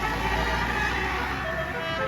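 A bus's basuri horn, a multi-note telolet melody horn, playing a tune over a strong low rumble from the bus engine. The horn notes are blurred by noise through most of it and come through clearer near the end.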